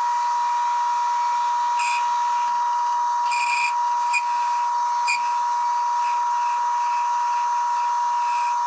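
Smithy CB-1220XL combination lathe running at low speed while its cutting tool takes a pass along a metal pipe: a steady high whine, with a few brief scrapes from about two to five seconds in.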